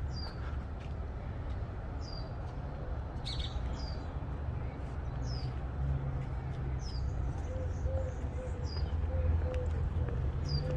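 A bird giving short, high chirps, each a quick falling note, repeated about every second or two, over a steady low rumbling noise.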